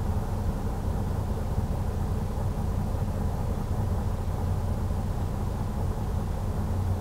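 Detroit DD15 inline-six diesel engine idling steadily, with cylinder 2's injector switched off for a cylinder cut-out test, so the engine runs with that cylinder dropped.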